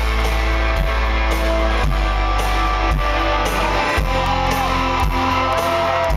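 Live rock band playing loudly in an arena, drums keeping a steady beat of about two strokes a second under electric guitar.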